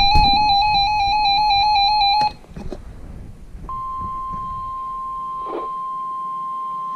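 A loud warbling electronic alert tone from a weather radio, stepping rapidly between pitches, stops about two seconds in. After a short gap, a steady single-pitch tone near 1 kHz starts, the NOAA Weather Radio 1050 Hz warning alarm tone, which signals that a warning broadcast follows.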